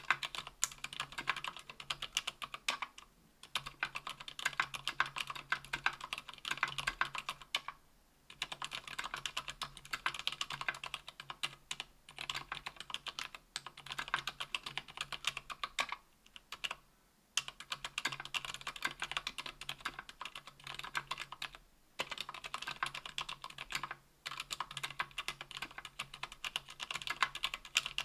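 Typing on a KBDfans Tofu 60% aluminium keyboard with lubed ZealPC Sakurios silent linear switches (62 g) and GMK keycaps: rapid runs of soft keystrokes, broken by brief pauses every few seconds.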